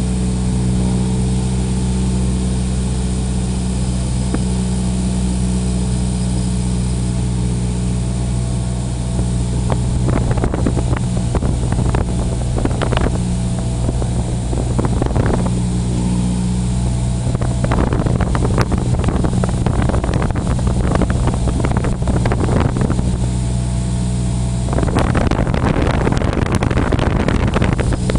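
Cessna 172's piston engine and propeller droning steadily. Rough, gusty bursts of noise come and go over the drone from a third of the way in, with a longer stretch near the end.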